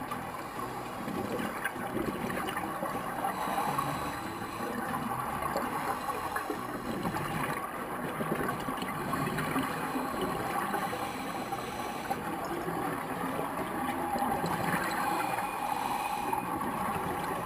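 Steady gurgling, sloshing water with a faint steady hum underneath.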